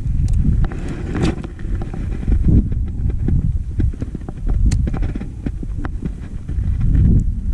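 Wind buffeting the microphone in an uneven low rumble, with scattered short clicks over it.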